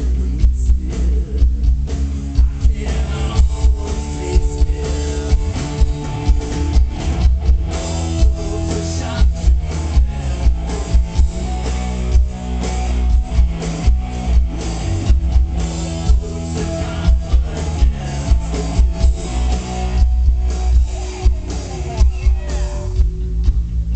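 A live rock band playing at full volume: electric guitars over bass and a drum kit, with the booming bass loudest.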